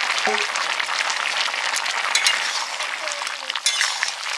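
Bottle gourd and shrimp curry bubbling and sizzling in a metal pot, a steady crackling hiss, with a few sharp clinks of a metal spatula against the pot in the second half.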